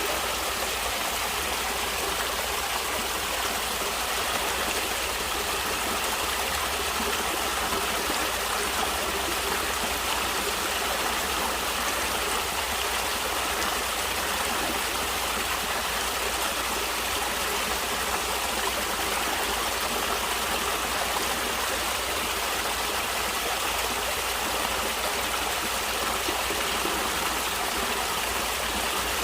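Stream water flowing steadily, an even unbroken rushing with no changes.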